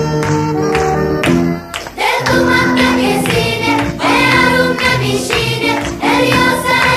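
Background music. It drops away briefly about two seconds in, and a song with singing follows.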